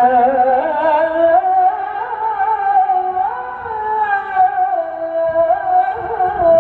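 Middle Eastern-style music: a single melodic line of long held notes that waver and glide in pitch, with ornamented turns.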